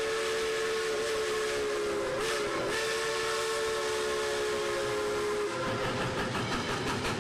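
Steam locomotive whistle blowing a long, steady chord that dips briefly in pitch a couple of seconds in and cuts off about five seconds in. After that, the locomotive's exhaust chuffs in a quick, even rhythm.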